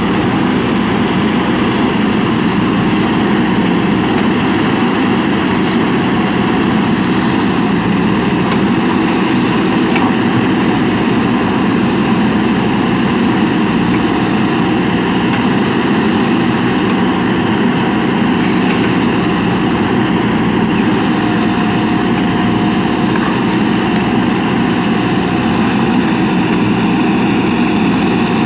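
JCB 3DX backhoe loader's diesel engine running steadily as the backhoe arm digs soil.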